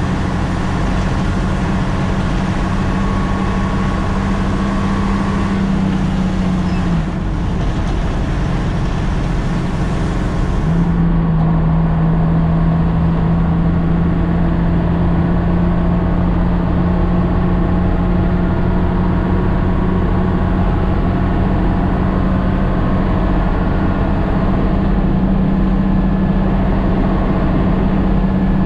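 Nissan CK31L concrete pump truck's diesel engine running while driving, with a steady note; about seven seconds in the note drops away and about four seconds later it comes back, slightly lower, and holds steady.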